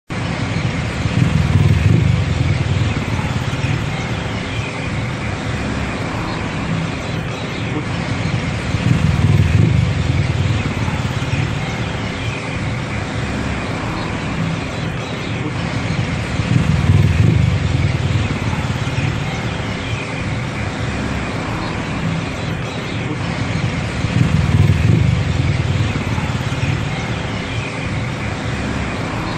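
Tuk tuk taxi's engine running and road noise, heard from its open-air rear passenger cab amid city traffic. It is loud, with a low rumble that swells louder four times, about every eight seconds.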